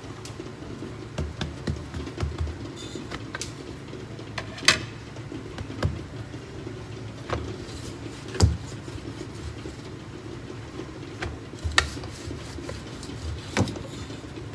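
Paratha dough being rolled out with a rolling pin and pressed by hand on a cloth-covered counter: soft rubbing and low thumps, with several sharp knocks. The loudest knocks come about four and a half and eight and a half seconds in. A steady low hum runs underneath.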